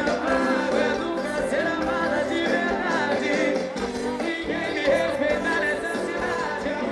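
Live concert music: a band playing with a lead singer.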